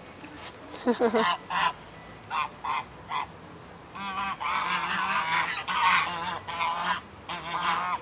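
Domestic geese honking: a few scattered short honks in the first three seconds, then a near-continuous run of honks from about halfway through.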